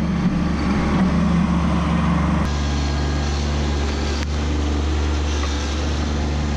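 Kubota B2601 compact tractor's three-cylinder diesel engine running steadily under load as its loader drives a stump bucket into the ground beside a stump. The engine note changes abruptly about two and a half seconds in.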